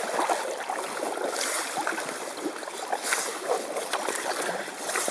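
Canoe paddling: paddle strokes swishing and splashing through the water about every two seconds, with drips and small water sounds between strokes and jacket fabric rustling close to the microphone.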